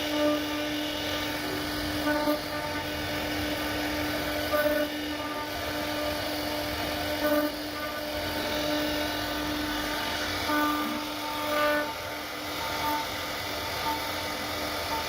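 CNC router spindle running steadily with a constant whine while the bit cuts wood, with brief changes in tone as the cut varies.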